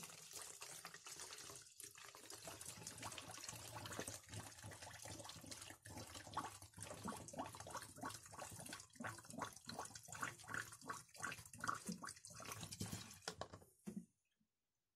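Petrol poured from a large plastic jug through a plastic funnel into a half-litre plastic bottle, mixing two-stroke fuel onto oil already in the bottle. The pour runs steadily, turns uneven and choppy in the second half, and cuts off abruptly shortly before the end.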